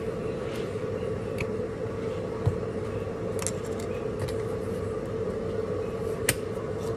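A steady hum under a faint hiss, with a few light clicks and taps of spice jars and a metal measuring spoon, and one sharper knock about two and a half seconds in.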